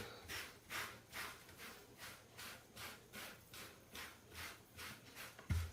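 A brush being drawn through a cat's fur in quick, regular strokes, each a short hiss, about two and a half a second. A low thump near the end.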